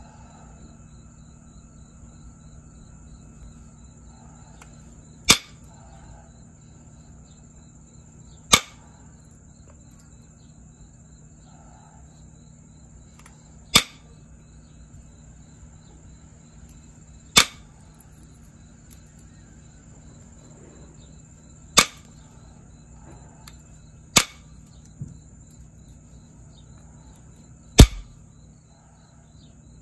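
Copper-tipped pressure flaker pressing flakes off the edge of a jasper preform: seven sharp clicks a few seconds apart plus one fainter one, each a flake snapping off, the last the loudest.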